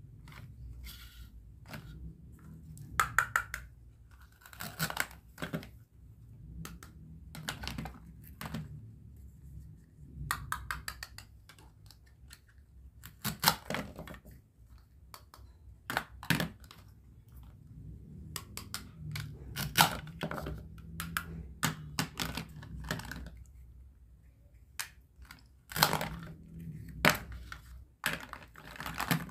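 Plastic toy fruit and vegetables being cut with a plastic toy knife: irregular clicks and taps of plastic knocking on a plastic cutting board, and several short rasping rips as the Velcro-joined halves are pulled apart.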